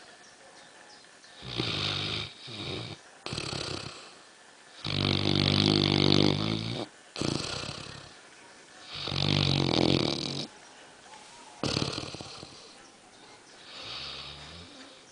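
Young black Labrador snoring in deep, noisy sleep: a run of separate rasping snores every second or two, the loudest and longest about five seconds in.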